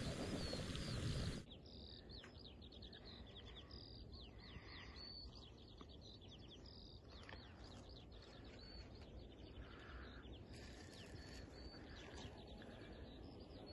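Wind rushing on the microphone for about the first second and a half, stopping suddenly. Then a faint dawn chorus of small birds singing, with many quick, repeated chirping notes.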